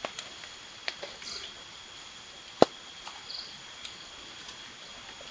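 A few sharp clicks and light knocks from ingredients being added to a metal pot of raw chicken, the sharpest about two and a half seconds in. Underneath is a steady high-pitched drone of crickets.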